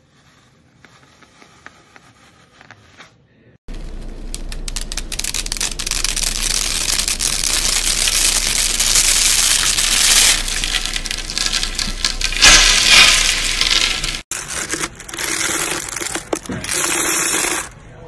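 A bundle of dry spaghetti twisted and crushed between the hands: a loud, dense crackle of many strands snapping, loudest about nine seconds in. It starts after a few quiet seconds of faint ticks, and after a sudden cut near the end a different, choppier crackling sound follows.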